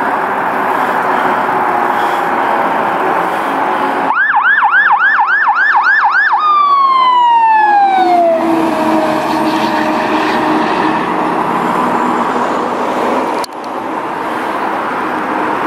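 Traffic noise, then a fire truck's electronic siren yelping rapidly, about three cycles a second, for some two seconds before sliding down in a single falling tone. The 2006 E-One Cyclone II aerial quint's engine and road noise follow as it passes and pulls away.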